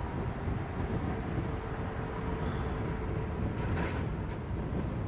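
Ford Crown Victoria driving, a steady low rumble of engine and road noise.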